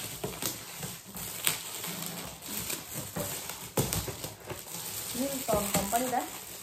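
Gift wrapping paper and cardboard boxes being handled and torn open: rustling and crinkling with scattered sharp taps and clicks. A voice briefly about five seconds in.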